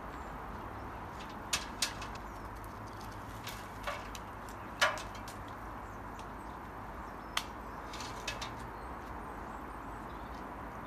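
A handful of sharp clicks and knocks at irregular intervals, the loudest about five seconds in, over a steady outdoor background hiss. The electric pole saw's motor is not running.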